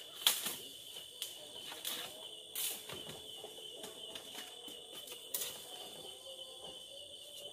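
Steady high trilling of crickets in the night, with a few sharp knocks and rustles of movement among bamboo stalks. The loudest knock comes just after the start and the last about five seconds in.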